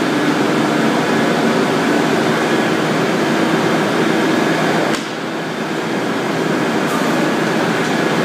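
GUIX 745 rubber Banbury internal mixer running, a loud steady mechanical hum with a few steady tones in it. About five seconds in there is a click, the noise drops briefly, then builds back up over about a second.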